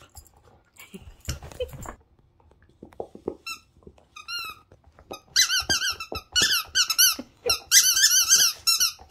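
Labradoodle chewing a rubber squeaky ball: a few short squeaks, then from about five seconds in a quick, louder run of wavering squeaks, with soft chewing noises in between.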